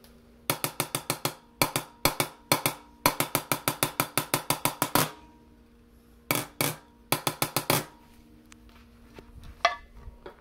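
Marching snare drum top, its bottom head and snares removed, struck with a wooden drumstick: quick runs of sharp strokes in several bursts with short pauses, the longest run about two seconds at roughly eight strokes a second. Some fainter knocks near the end.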